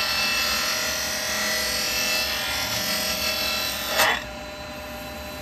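A spindle gouge cutting along a wooden spindle spinning on a wood lathe, with the bevel riding the wood to hold the depth of cut. The cutting stops about four seconds in with a brief sharp scrape, leaving the lathe running quieter.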